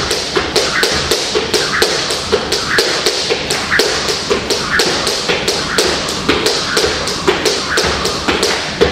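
Steady rhythmic tapping, about four sharp taps a second, keeping an even beat.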